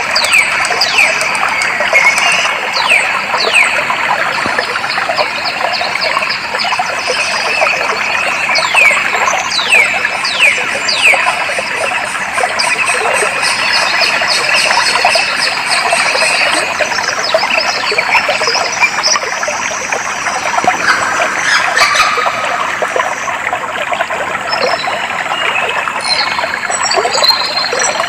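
Clear water flowing steadily, with birds calling over it in quick downward-sweeping notes, in bouts near the start and around ten seconds in, and higher twittering near the end.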